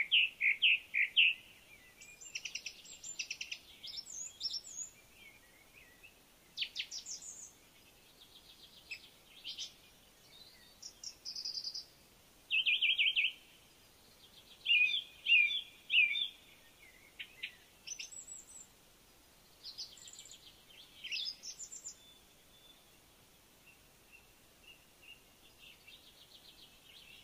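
Songbirds chirping and singing: clusters of short high calls and fast trills with gaps between them, growing sparse and faint in the last few seconds.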